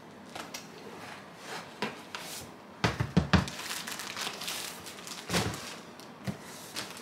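Cardboard boxes and plastic-wrapped packs being shifted and handled: rustling and crinkling, with a cluster of knocks about three seconds in and another thump a little after five seconds.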